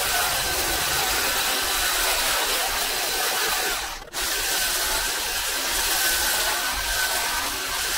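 Battery-powered long-reach hedge trimmer running as its cutter bar trims a conifer hedge: a steady power-tool whine, broken by a brief dropout about halfway through.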